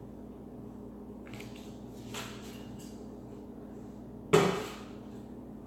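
Kitchen handling sounds: soft rustling and light clinks, then about four seconds in one loud clunk of a hard kitchen item, such as a pot or dish, being set down, over a steady low hum.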